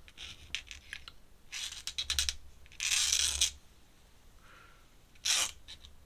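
Ink brush dragged across drawing paper in several short scratchy strokes, the longest about three seconds in, with light taps between.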